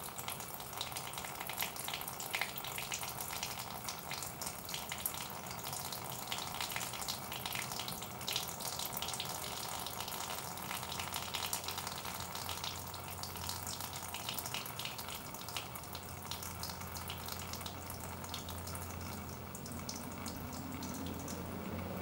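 Trapped water draining in a thin stream from a drilled hole in a Husqvarna TR650 swingarm and splattering below, thinning out over the last few seconds. The swingarm is prone to collecting water inside.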